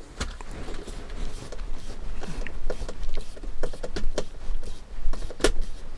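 Scattered light clicks and taps of hard plastic parts as a Tamiya MF-01X RC car chassis is handled and worked on, with one sharper click about five and a half seconds in.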